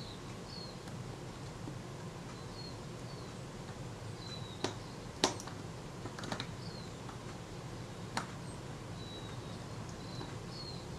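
A few small sharp clicks of a fine screwdriver and hinge pin screw on the metal door hinge of a Kodak Retina IIIc camera, the loudest about five seconds in, as the screw is worked in and does not want to go. Faint short high chirps sound now and then behind a low steady room noise.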